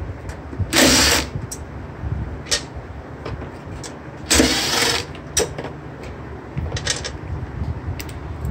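Push-mower engine turned over twice on its recoil pull-starter: two short whirring rushes, about a second in and about four and a half seconds in, without the engine catching. Light clicks and handling knocks fall between the pulls.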